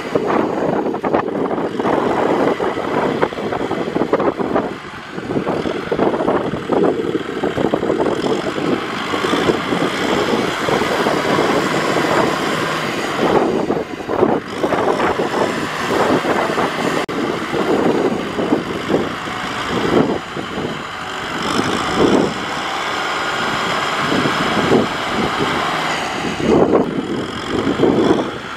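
Kubota M6040 tractor's diesel engine working under load as the tractor, bogged down in deep mud with a loaded trailer behind it, tries to drive out. The level rises and falls irregularly, with a brief dip about five seconds in.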